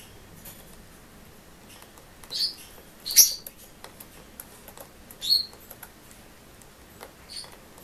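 Small green pet parrot giving three short, high chirps, the loudest about three seconds in, with faint scattered ticks between them.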